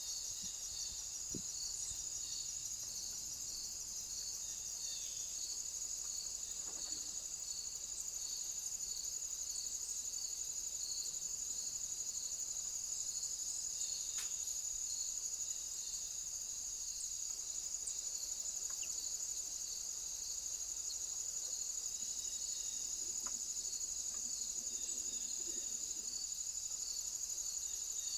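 Crickets chirping: a steady high-pitched trill, with a second, slower call pulsing about once a second beneath it.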